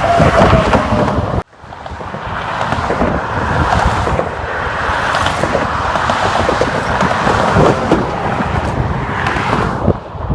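Road traffic passing close by, heavily buffeted by wind on the microphone. The sound cuts out sharply about one and a half seconds in and swells back up.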